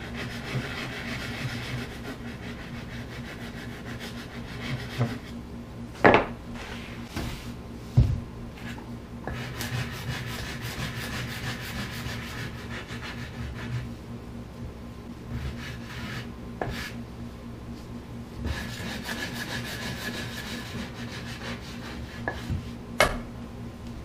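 Sanding block rubbing along the edges of a wooden stretcher frame in several stretches of scratchy strokes, with three sharp knocks of wood about 6, 8 and 23 seconds in.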